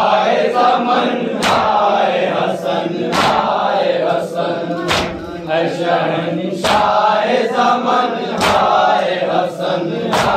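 A group of men chanting a nauha, a Shia lament, in unison, to matam: hand-on-chest slaps struck together in time, a loud one about every 1.7 seconds, with lighter slaps between.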